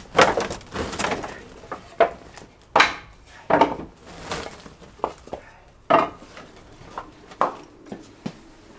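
Wooden offcuts knocking and clattering as they are tossed onto a pile one by one, about a dozen irregular sharp knocks a second or so apart.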